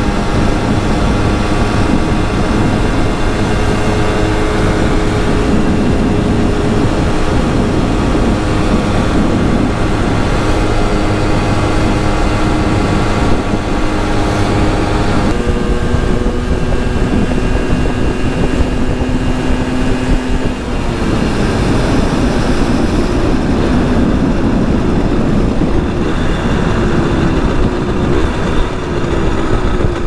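Simson 50 cc single-cylinder two-stroke moped engine running while riding, with rushing noise under it. The engine note holds steady, changes pitch suddenly about halfway through, and then blurs into a rougher, noisier sound.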